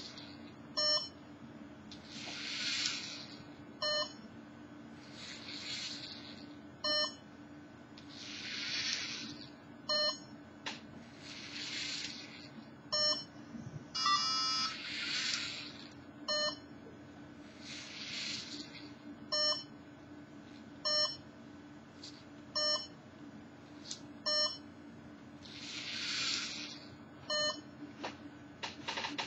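LEGO Mindstorms NXT robot arm's servo motors whirring in short runs of about a second as the arm moves out over the board and back, about eight runs in all. Short electronic beeps fall between the runs, with a quick string of tones about halfway through.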